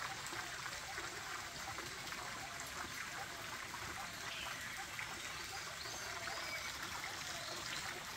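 Steady rush of a river's flowing water, with a few faint high chirps over it.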